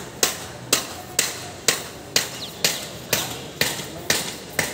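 Steady hammering: sharp, evenly spaced strikes, about two a second, with a short ring after each.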